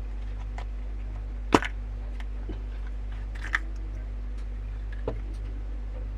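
Scattered light clicks and taps, with one sharp knock about a second and a half in, over a steady low electrical hum.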